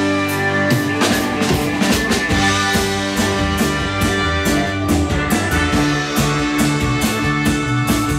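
Live soul-rock band playing an instrumental passage between vocal lines: drum kit keeping a steady beat under electric guitars, bass, keyboard and a trumpet and saxophone horn section, with held notes over the beat.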